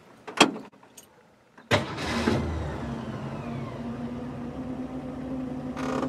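A sharp click about half a second in, then the Ford Falcon's engine fires up suddenly just under two seconds in and settles into a steady idle on choke, heard from inside the car, its exhaust running through a newly installed muffler.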